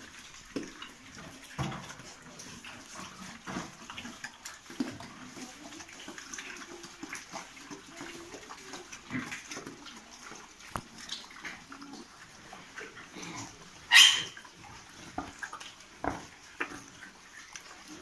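Pigs feeding in a concrete pen, grunting in short low bursts and making wet, scattered chewing and snuffling sounds. One short, loud high-pitched sound rises above them about three-quarters of the way through.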